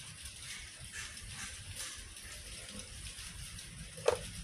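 Low steady background hiss, then a sharp click about four seconds in as the tension knob of a MIG welder's wire feeder is swung down to clamp the pressure arm onto the welding wire.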